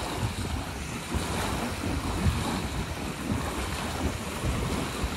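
Small waves washing onto a beach, with wind rumbling on the microphone.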